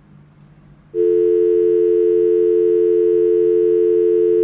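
Telephone tone as a call is placed: two steady pitches sounding together, like a dial tone, switching on about a second in and held unbroken, loud.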